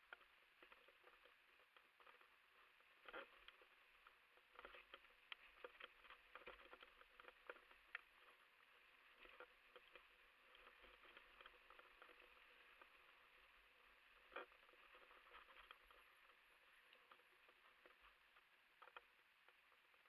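Faint rattling and clicking of a mountain bike running down a rough dirt trail, with tyres rolling over dirt and leaves and irregular sharp knocks from bumps, clustered about three seconds in, from five to eight seconds, and once at about fourteen seconds.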